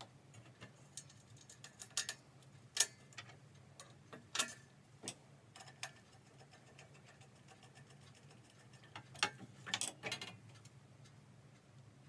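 Small metal parts, a threadlock bottle and a bracket clicking and knocking against a steel workbench top as screws are handled. The sharp clicks come in scattered clusters, about two seconds in, around four to five seconds, and again around nine to ten seconds.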